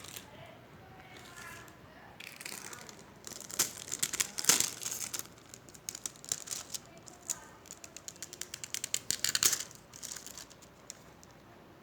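Plastic packaging crinkling and rustling as a smartwatch is unwrapped, in crackling bursts loudest about four seconds in and again near ten seconds.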